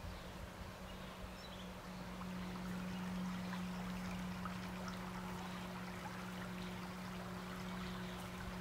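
A small brook running and trickling steadily, with a steady low hum underneath.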